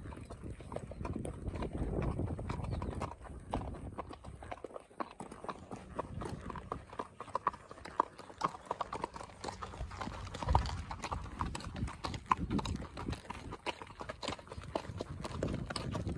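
Horses walking on a gravel dirt track: a steady, irregular clip-clop of hoof strikes.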